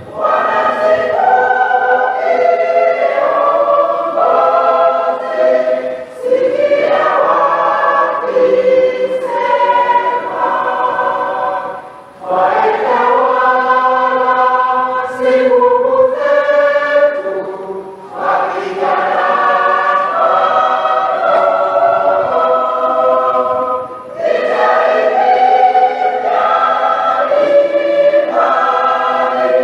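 Large mixed choir singing a hymn in full voice, in long phrases with short breaks about every six seconds.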